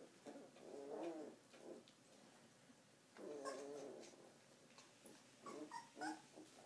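Two-and-a-half-week-old Afghan Hound puppies whimpering and squeaking in short wavering, mewing cries, in three bouts.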